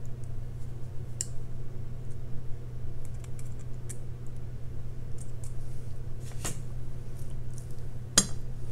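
Scattered light clicks of steel jewelry pliers and 20-gauge craft wire as the wire is wrapped around its stem to close a loop, with one sharper click near the end. A steady low hum runs underneath.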